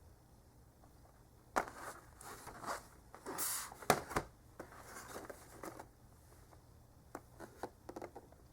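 Hands handling a boxed pen set's packaging: irregular rustling and scraping with a few sharp clicks for several seconds, then a few light taps near the end.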